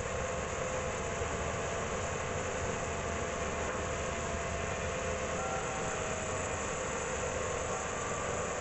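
Sawmill band saw running steadily, a constant machine noise with no change in pace.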